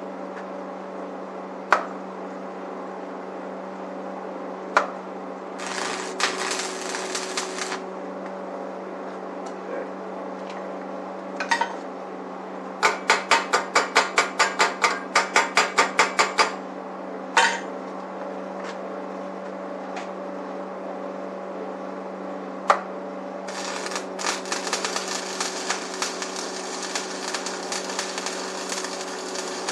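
Arc welder laying tack welds on the steel frame of a homemade chainsaw mill: a short stretch of crackling about six seconds in and a longer one near the end. In between come a single knock now and then and a quick run of hammer blows, about four a second. A steady electrical hum runs underneath.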